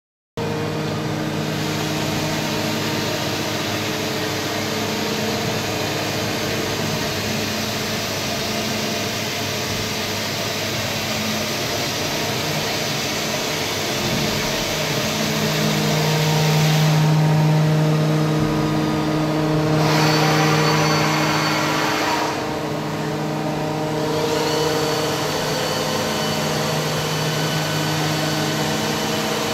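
TOS WHQ 13 CNC horizontal boring mill running: a steady motor hum and whine over a mechanical noise. The low hum swells louder for several seconds in the middle, and a short hiss comes about two-thirds of the way through.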